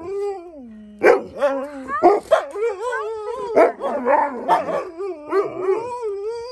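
Alaskan Malamutes 'talking': drawn-out, wavering woo-woo calls that slide up and down in pitch, at times two voices overlapping, broken by several short loud barks.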